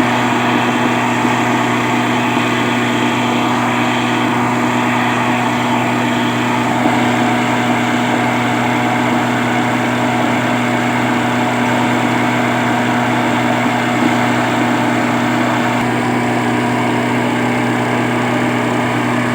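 A small engine running steadily at a constant speed, with an even low hum.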